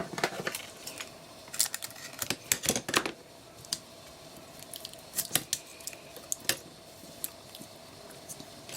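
Kapton tape being handled and applied to a pack of 18650 cells: sharp crinkly clicks and crackles in a busy cluster over the first three seconds and again around five to six seconds in, then a few scattered ticks.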